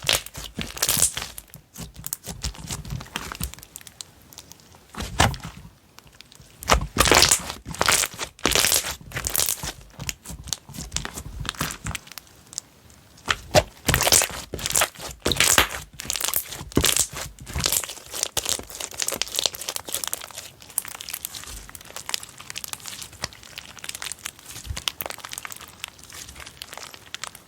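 Slime being squeezed, pressed and stretched by hand, making irregular bursts of crackling and popping. The bursts are loudest in the first two-thirds and turn into softer, smaller crackles near the end.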